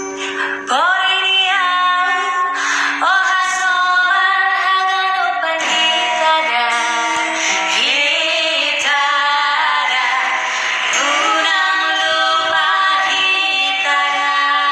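Two women singing a slow song together, with sliding, held notes, accompanied by an acoustic guitar.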